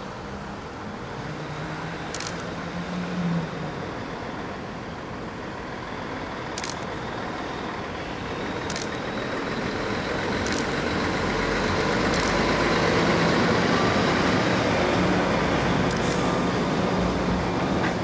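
Heavy tractor-trailer hauling an N700 Shinkansen car by road: a truck engine and tyre rumble that builds as it approaches and is loudest as it passes close by, from about halfway through.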